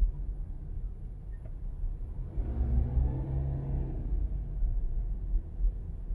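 A car driving slowly on a suburban street: steady low road and engine rumble, with a louder engine note swelling for about two seconds near the middle.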